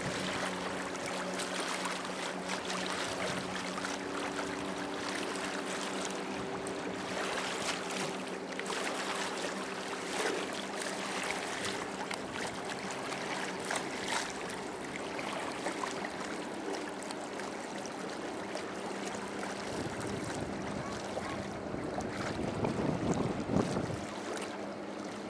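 Steady low motor hum over water noise, with wind buffeting the microphone, strongest a couple of seconds before the end.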